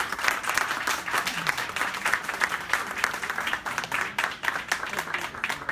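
A roomful of people applauding, many hands clapping together in a dense, steady patter.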